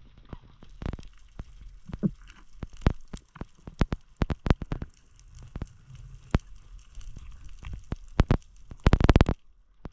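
Underwater crackle of irregular sharp clicks and snaps, a few every second, with a dense rattle of clicks about nine seconds in.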